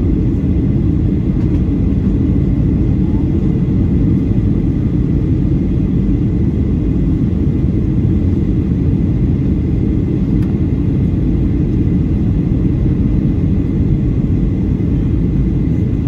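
Cabin noise inside a Boeing 737-800 on approach: a steady low rumble of engines and rushing air, with a faint steady high whine above it.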